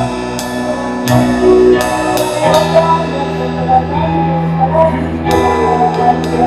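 Live worship band music: sustained chords with repeated cymbal crashes and drums.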